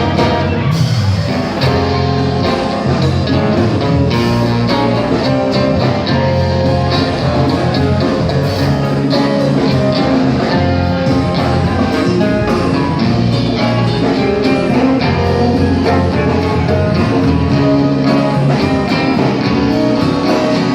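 A rock band playing live, an instrumental passage with the guitar to the fore over bass and drums.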